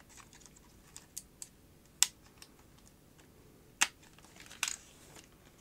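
Scattered clicks and taps from a small plastic camcorder being handled, with two sharper clicks about two seconds and four seconds in and a short run of softer clicks just after.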